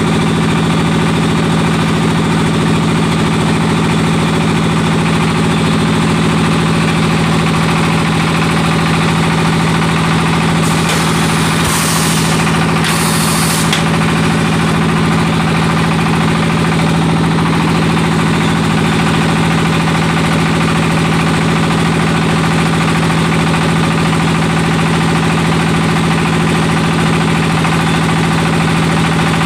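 BA02S automatic clay brick extruding machine running steadily with a constant mechanical hum. Two short hisses come about 11 and 13 seconds in.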